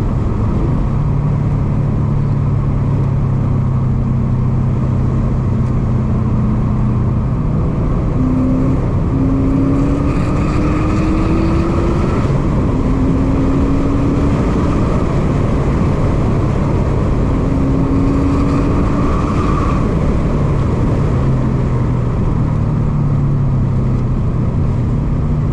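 Cabin sound of a 2017 Subaru WRX STI's turbocharged 2.5-litre flat-four driven hard: the engine note climbs in pitch three times, dropping back with gear changes between, and settles lower near the end. Heavy road and wind noise fills the cabin throughout.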